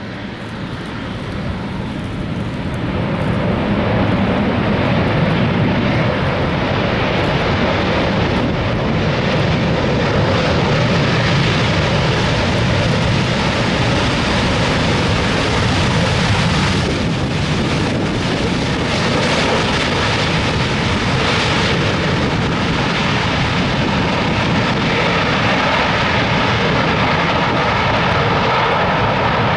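Jet engine noise of an Airbus A380-800's four turbofans as the airliner passes, growing louder over the first few seconds, then holding a steady loud rumble and hiss with a faint whine.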